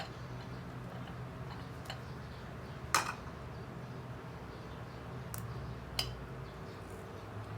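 A few irregular sharp clicks and taps of a utensil against a dish, the loudest about three seconds in, over a steady low hum.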